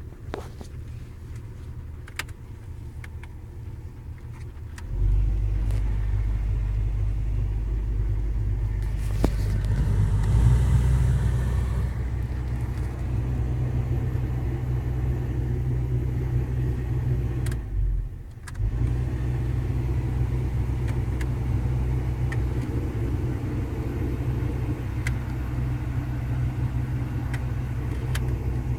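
Strange noise from a VW Golf IV's heating system: a steady low hum with a few light clicks at first. The hum gets much louder about five seconds in and again near ten seconds, with a short hiss at that point. It drops out briefly around eighteen seconds, then carries on steadily.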